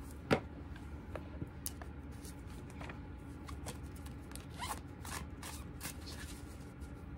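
A deck of tarot cards being shuffled and handled: scattered soft flicks and clicks, with one sharper snap just after the start, over a low steady hum.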